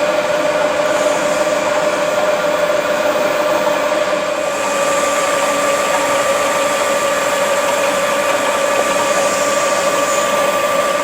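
XYZ PRO 3000 CNC turret mill running with a steady mechanical whine, a higher tone joining in about halfway through.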